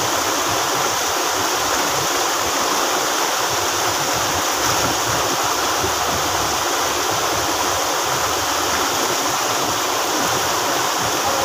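Rocky mountain stream rushing over boulders and a small cascade: a steady rush of white water.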